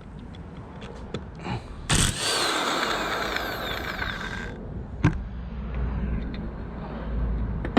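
Impact wrench rattling on a wheel bolt for about two and a half seconds, starting about two seconds in, with scattered clicks and knocks around it.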